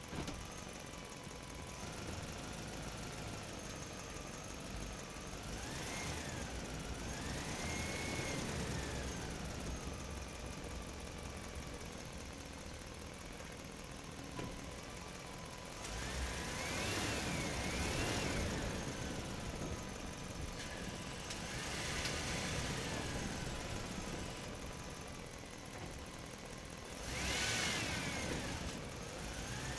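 Electric motors and gearboxes of radio-controlled model construction machines whining, the pitch rising and falling in several spells as the machines move, over a steady low hum.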